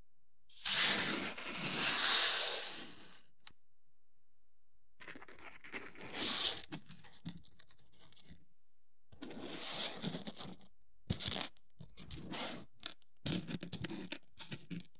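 Hobby work on plastic model parts: a long burst of scraping and rustling about a second in, then shorter scrapes and a run of sharp clicks and knocks in the second half.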